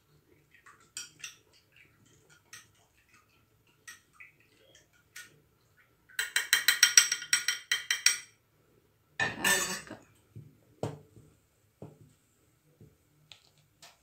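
Metal spoon clinking against a ceramic bowl while stirring ground flaxseed into cold water: scattered light clinks, then a fast run of rapid clinks for about two seconds midway, followed by a louder clatter.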